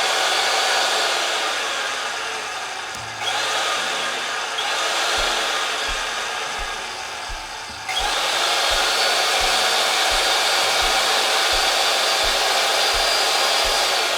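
Electric pipe-threading machine running under its foot pedal, motor whining steadily as it turns a threaded black iron pipe. The motor sags and starts up again about three seconds in and about eight seconds in. From about five seconds on there is a regular low thump roughly every 0.7 seconds.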